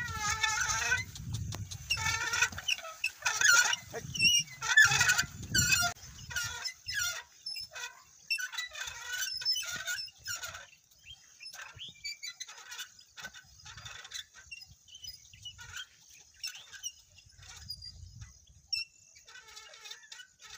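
Birds calling: a rapid string of short, pitched calls, loudest and densest in the first six seconds, then sparser and fainter. A low rumble lies under the first few seconds.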